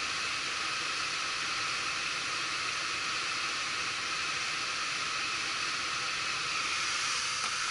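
Running heat pump equipment giving a steady, even rushing hiss of moving air, with no distinct hum, knock or rhythm.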